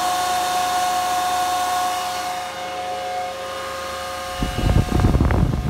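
Antminer S9 Bitcoin miner's cooling fans running at full speed: a steady rush of air with a whine of several steady tones. About four seconds in, the fans' airflow strikes the microphone as loud, gusty wind noise.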